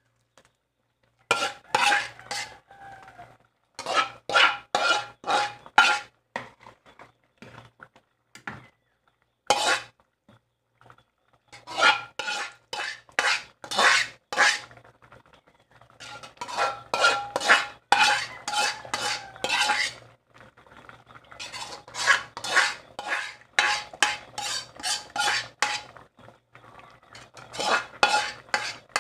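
A spoon scraping and knocking against a metal pan and cooking pot in quick runs of strokes with short pauses, the metal ringing. Fried masala is being scraped out of the pan into a pot of dal.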